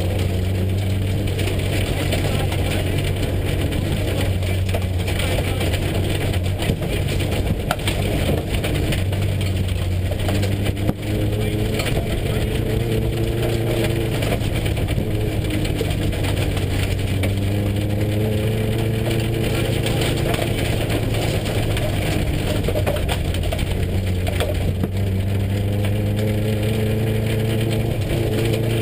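Subaru rally car's flat-four engine running at steady, moderate revs, heard from inside the cabin over constant road noise, with small shifts in engine pitch as the car holds speed. The car is being driven on a flattened right front tyre with a bent control arm.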